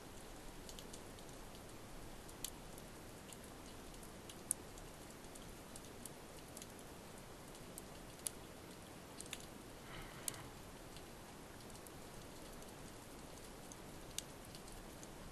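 Underwater rocky-reef ambience: a steady faint hiss speckled with scattered sharp clicks and crackles, about five of them standing out, and a brief rustle about ten seconds in.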